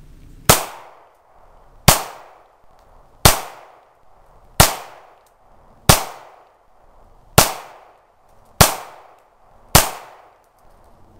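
Hi-Point C9 9mm pistol firing eight shots in slow succession, roughly one every 1.2 to 1.5 seconds, each sharp crack trailing off in echo. This is a full standard eight-round magazine of Tula ammunition fired without a stoppage.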